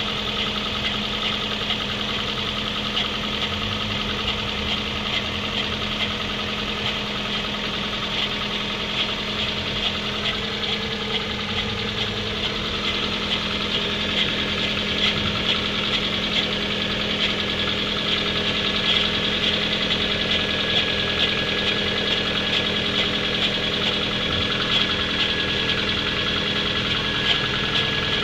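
Kia Rio running steadily, with an extraneous whizzing noise that the owner hears coming from the right side. The level rises a little partway through.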